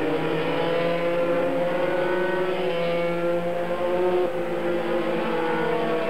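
Several IndyCars passing in a group at racing speed, their 2.2-litre twin-turbo V6 engines running at high revs. Their pitches overlap and slide slowly up and down as the cars go by.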